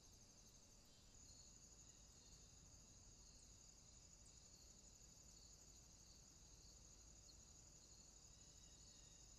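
Near silence, with faint insect chirring held steady at a high pitch.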